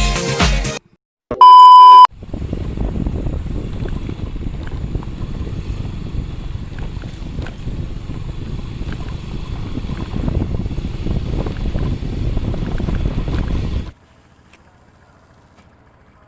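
The tail of upbeat intro music stops, and after a moment's silence a loud, steady electronic beep tone sounds for under a second. Then a steady low rumbling noise with scattered clicks runs for about twelve seconds and cuts off suddenly.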